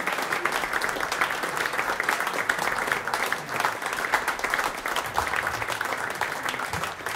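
Audience applauding, a dense steady patter of clapping.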